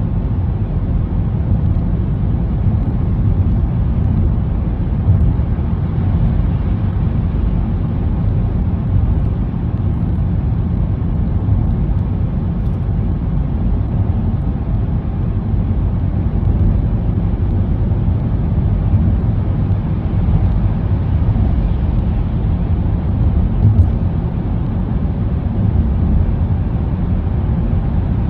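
Steady low rumble of a car driving at a constant speed through a road tunnel, heard from inside the cabin: engine and tyre noise with no change in pace.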